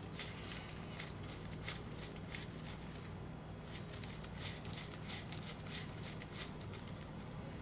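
Faint rustling of gloved hands and light, irregular ticks as a small nut is run down by hand onto the coil bolt of a 6.0 Powerstroke fuel injector. A low steady hum sits underneath.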